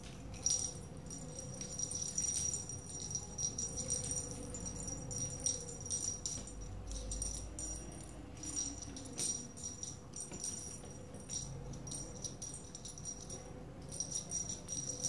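Small bell on a cat wand toy jingling in irregular shakes as the wand is waved and a kitten bites and bats at it. The jingling pauses briefly near the end, then starts again.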